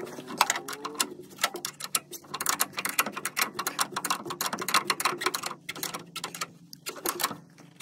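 Ratchet wrench clicking in quick runs with short pauses while the bolts of a rear shock absorber kit are tightened.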